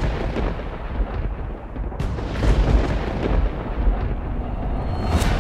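Deep rumbling booms with a heavy low rumble underneath, like thunder or explosions. A new boom hits about two seconds in, and a sharp crack comes near the end.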